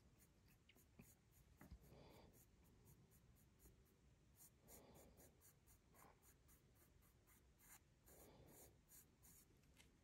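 Wooden pencil drawing on sketchpad paper: faint, soft scratchy strokes every second or two as a curved outline is sketched in.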